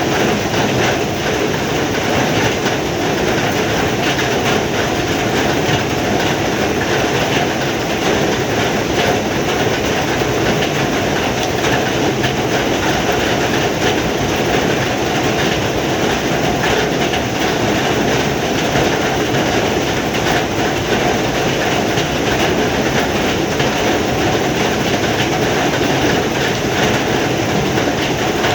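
Heavy rain falling, a dense, steady hiss and patter of drops that holds at the same level throughout.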